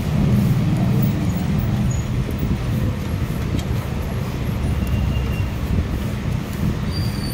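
Steady low mechanical rumble, like a vehicle engine running.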